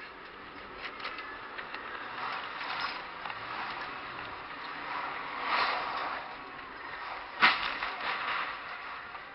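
Road and cabin noise in a moving car, with scattered clicks and rattles, a swell of noise midway, and one sharp bang about seven and a half seconds in.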